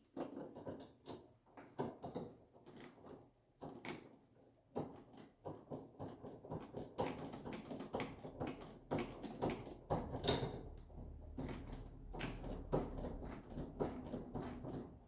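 Irregular clicks, taps and knocks of hand tools and metal parts being handled while working on a car's steering, with rustling between them, busier from about five seconds in.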